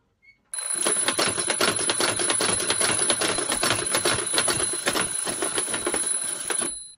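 Alarm clock ringing loudly, a rapid metallic clatter with a thin steady high tone through it. It starts about half a second in and cuts off suddenly near the end.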